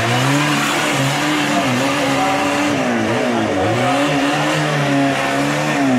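Small tractor's engine revving as it drives through a deep mud pit, its pitch falling and rising again several times.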